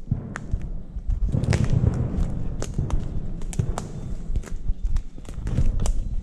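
Footsteps at night: irregular sharp snaps and clicks, about two or three a second, over a low rumble.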